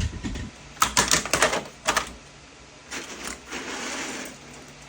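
Hard plastic clicks and cracks in quick succession, then a short scraping rustle: a 3D print being snapped and pried apart by hand.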